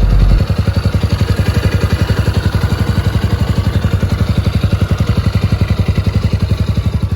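Gilera YL200's 193 cc air-cooled single-cylinder four-stroke engine idling with a steady, even putter.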